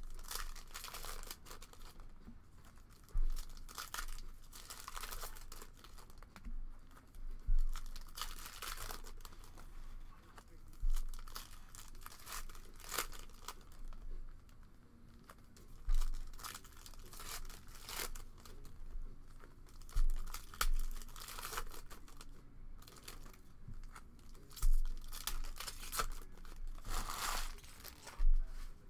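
Foil trading-card pack wrappers being torn open and crinkled in the hands, in repeated irregular rustling bursts, with several short thumps on the table among them.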